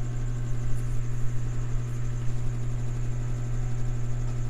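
Steady low electrical mains hum, unchanging throughout.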